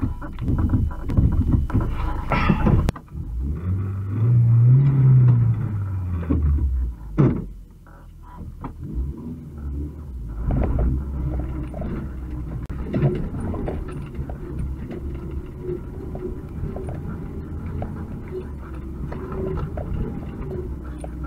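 UAZ 2206 van's engine running as the van crawls over a rocky track, with rattling and knocking from the body. The engine revs up and back down about four to six seconds in, and a sharp knock comes about seven seconds in.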